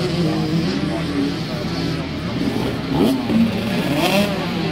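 Racing engine running at a fairly steady pitch, then revving up and down in quick swells over the last couple of seconds.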